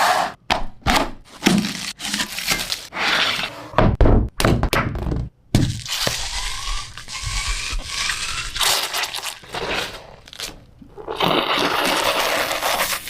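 Hands-on food preparation of watermelon for ice cream: a run of thunks, cracks and scrapes, with the heaviest thuds about four seconds in, broken by stretches of steady rushing noise.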